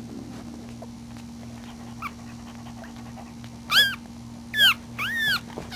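One-week-old Maltese puppy whimpering: a small squeak about two seconds in, then three high, arching cries in quick succession near the end, the last one the longest.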